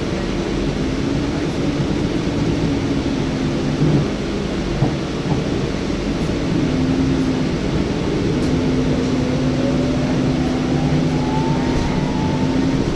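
Inside a 2009 NABI 40LFW hybrid transit bus: a steady drivetrain hum over road noise, with a couple of brief knocks about four seconds in. In the second half a whine from the hybrid drive rises steadily in pitch as the bus gathers speed.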